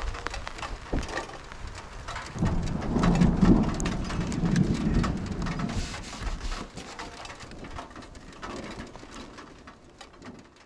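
Heavy rain falling, with many sharp drop ticks, and a rumble of thunder from about two to six seconds in. The sound fades out near the end.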